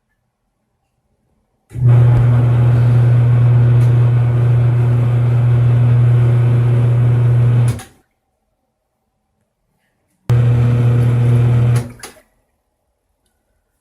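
Electric motor of a Giantex portable twin-tub washing machine running with a steady low electrical hum. It runs for about six seconds, stops dead, then comes back for about two seconds near the end.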